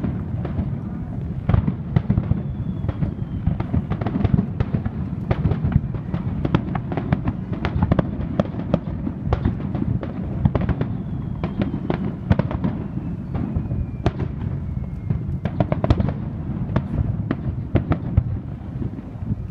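Aerial fireworks going off in a dense, continuous barrage: many booms and cracks in quick succession over a constant low rumble.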